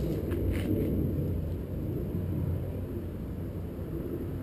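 Steady low outdoor background rumble, with a few faint small clicks about half a second in.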